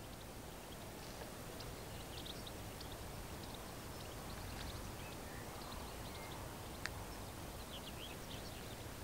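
Small birds chirping in short, scattered calls over a steady low outdoor rumble, with a single sharp click about two-thirds of the way in.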